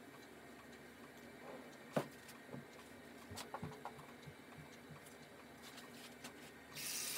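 Faint handling noises: a sharp click about two seconds in, then a few soft knocks and clicks, and a short hiss near the end.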